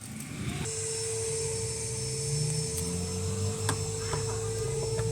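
Electrolux LTD 11 washing machine starting up about half a second in, then running steadily with a hum, a high hiss and a low rumble.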